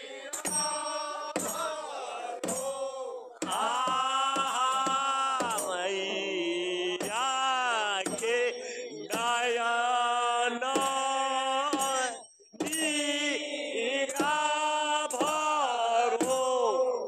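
A group of men singing a Kumaoni Holi song in chorus, in long drawn-out phrases, with drum beats under the singing. The singing stops briefly about twelve seconds in, then starts again.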